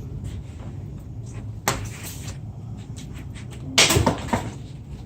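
Cardboard shipping box being cut open and handled around a metal tool chest. There is a sharp scrape about a third of the way in and a louder cluster of knocks and scrapes near the end.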